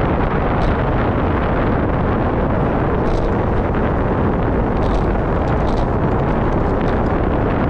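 Steady wind noise rushing over the microphone of a camera moving through open air, a dense even rumble with no let-up.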